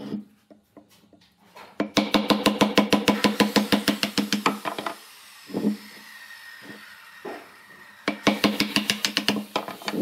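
Wooden mallet tapping rapidly on the side of a glued-up wooden cylinder to knock its sawn segments loose, each knock hollow and woody with a low ringing note. The fast tapping runs for about three seconds, pauses with a couple of single knocks, then starts again near the end.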